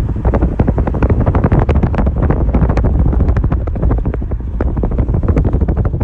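A car driving on a gravel road with the side window open: a loud, steady low rumble of wind buffeting the microphone and tyre noise, with many sharp clicks and pops of loose gravel under the tyres.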